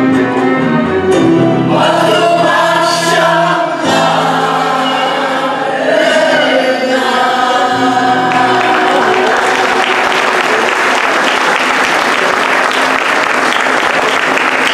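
Mixed choir singing Turkish art music with a small ensemble of strings and lutes, closing on a held final chord about eight seconds in, then audience applause.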